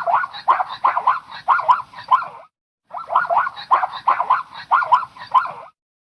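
Zebra calling: two bouts of quick, repeated barking, honking calls, about three a second, with a short pause between the bouts.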